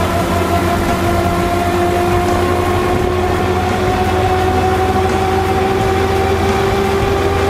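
Gyrocopter engine and propeller running on the ground, a steady drone whose pitch rises slowly as the revs build.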